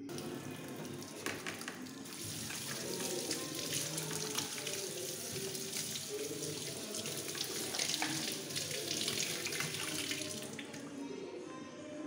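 Kitchen tap running into a stainless steel sink while a power plug is scrubbed under the stream with a plastic brush; the water stops near the end.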